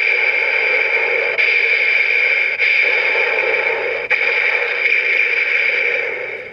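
CSM Den-O Belt's small built-in speaker playing a loud, static-like electronic sound effect from the Momotaros attack sequence, changing abruptly a few times.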